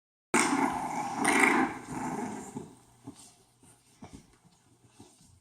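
A dog growling in a loud, rough burst lasting about two seconds, then fading to faint rustling and small clicks. This is a mother dog's warning growl at someone near her puppies.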